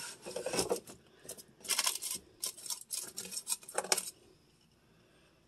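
Containers and bottles clinking and knocking as they are handled on refrigerator shelves, in several clusters of sharp knocks that stop about four seconds in.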